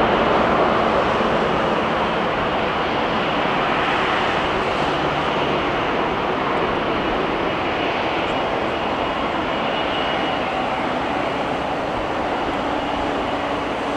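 Jet aircraft engines running in a steady roar that slowly fades.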